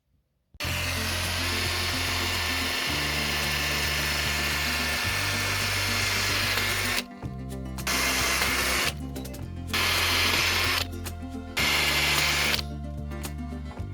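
Power drill boring holes, one long run of about six seconds, then three short bursts, over background music with a steady bass line.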